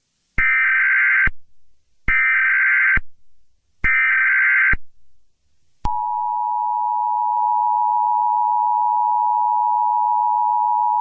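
Emergency Alert System broadcast tones: three short, identical bursts of SAME header data, each just under a second, then the steady two-tone EAS attention signal, which starts a little over halfway through and holds.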